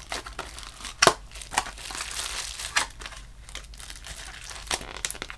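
Clear plastic packaging of a squishy toy crinkling as it is handled and pushed back into its plastic clamshell box, with several sharp plastic clicks, the loudest about a second in.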